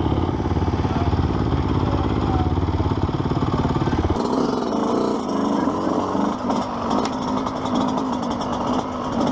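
Yamaha YZ125 two-stroke dirt bike engine running at a steady, rapid idle. About four seconds in, the sound turns lighter and uneven as the bike rolls off at low speed.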